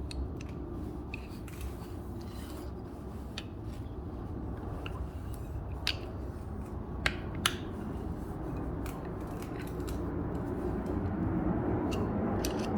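Reusable air hose fitting being threaded into a rubber air hose with two wrenches: a low, steady rubbing as the insert works into the inside of the hose, with a few sharp metal clicks.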